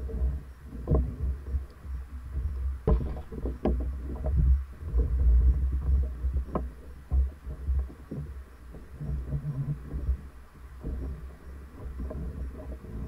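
Water sloshing against the hull of a moored Chris-Craft Speedster runabout, with an uneven low rumble that swells and fades. A few sharp knocks come about three, four and seven seconds in.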